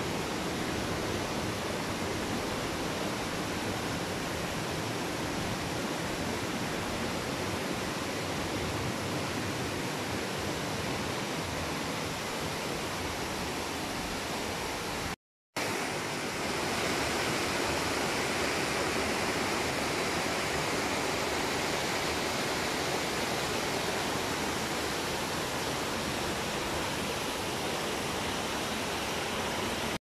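Rushing water of a mountain stream cascading over rocks in a narrow gorge, a steady rush. It cuts out briefly about halfway through, then comes back slightly louder and brighter.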